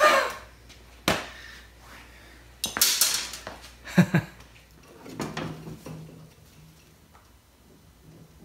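Metal motorcycle frame parts clattering and knocking: a sudden loud clatter at the start, then a few separate knocks and clanks over the next five seconds as parts and a wooden board are handled.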